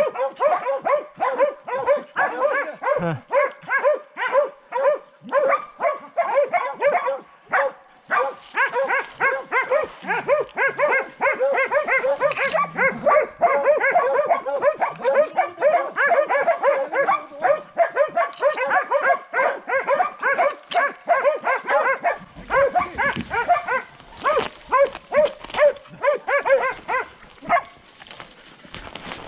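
A pack of boar-hunting dogs barking rapidly and without a break, about three barks a second, as hunting dogs do when holding a wild boar at bay in thick cover. The barking thins out and stops near the end, and brush rustles in its place.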